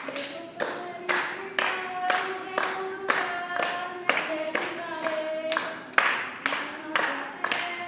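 A small group clapping along in a steady beat, about two claps a second, with singing carrying a melody over it.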